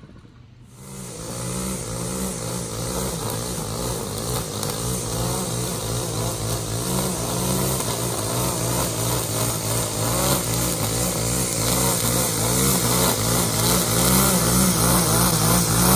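Petrol string trimmer running at high revs as it cuts grass, the engine speed stepping up and down with the throttle; the sound comes in about a second in.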